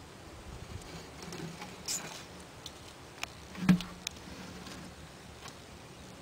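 Faint clicks and rustles, with one sharp knock about three and a half seconds in, as a bearded dragon lunges up and snaps a dangled pinky mouse into its jaws.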